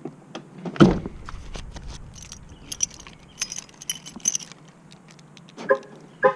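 A car door shuts with a thump about a second in, then a bunch of keys jangles in hand for a couple of seconds. Two short, sharp sounds follow near the end.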